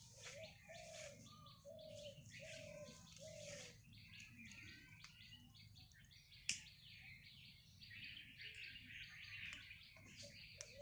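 Faint birdsong: many small birds chirping, with a run of about five short, slightly falling lower notes in the first few seconds. A single sharp click comes about halfway through.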